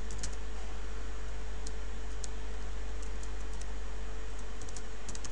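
Computer keyboard being typed on, a few scattered keystrokes as a word is keyed in, over a steady low hum and hiss.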